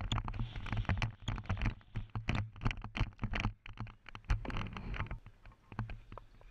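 Rapid, irregular knocks and thuds of a cricket batsman running between the wickets with a body-worn camera, over a low rumble of wind on the microphone; the knocks thin out about five seconds in.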